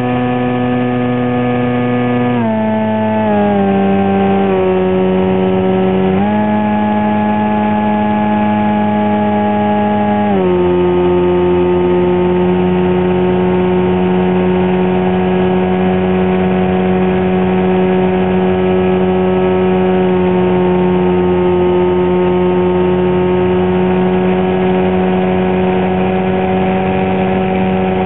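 Radio-controlled foam model airplane's motor and propeller running, heard from a camera on board. The pitch steps down a few times about two to four seconds in, rises about six seconds in, then drops again about ten seconds in and holds steady, following the throttle.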